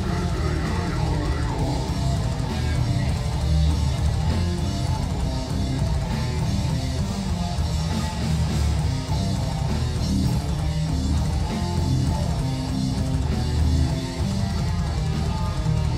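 Melodic death metal band playing live: distorted electric guitars, bass guitar and a drum kit, loud and dense without a break.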